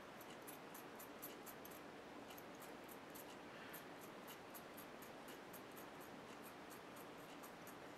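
Faint, quick scraping: a hobby knife rasping insulation and hardened glue off an inductor's copper wire, several light scrapes a second.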